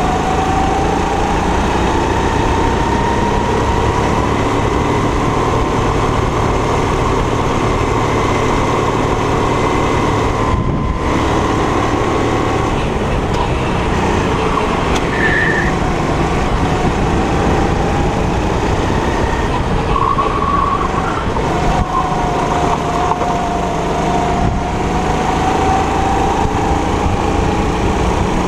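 270 cc four-stroke kart engine running hard while lapping, heard from the driver's seat over a steady rush of noise; its pitch climbs slowly, drops back about ten seconds in, and climbs again towards the end as the kart speeds up and slows for corners.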